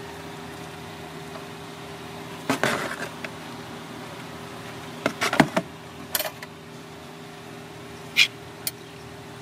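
Sharp knocks and clatters of a bowl and plate being handled while noodles are served: a few about two and a half seconds in, a cluster around five to six seconds, and two short ones near the end. A steady hum runs underneath.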